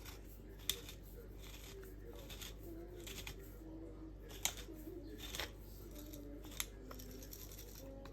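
Handling of kitchen utensils and containers: a few sharp clicks and taps among softer scraping and rustling strokes.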